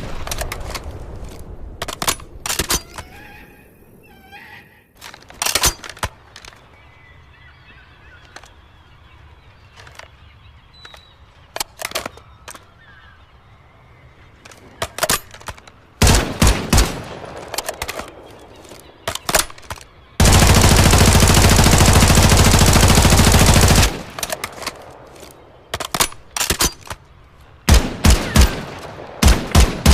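Static-HV submachine gun sound effect firing single shots and short bursts, then one continuous burst of automatic fire lasting about three and a half seconds, twenty seconds in.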